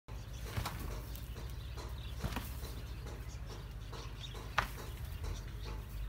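Livestock shed ambience: a steady low hum with three sharp knocks, the loudest about four and a half seconds in, and faint bird chirps.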